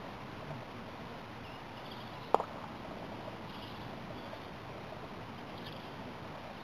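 A croquet mallet strikes a ball once about two seconds in: a single short, sharp clack.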